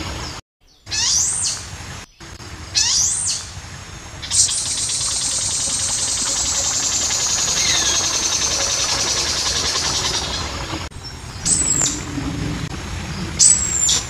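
Red-crested malkoha calling: two short, sharp rising high calls, then a long high buzzing call that drifts slowly lower for about six seconds, then two short high notes near the end.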